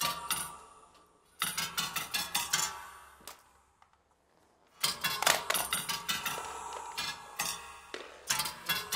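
Motor-driven kinetic sculpture of upcycled bandsaw blades clattering in rapid runs of sharp metallic strikes, set off by its movement sensor as people approach. The strikes come in bursts: briefly at the start, again from about a second and a half in, then a near-silent pause of about a second before a longer run from about five seconds in.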